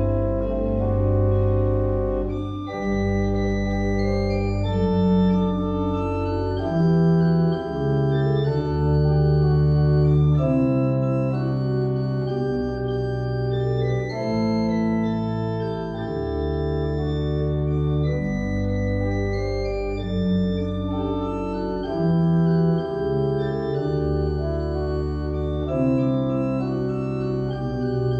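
Church pipe organ playing slow, sustained chords that change every second or two over deep bass notes.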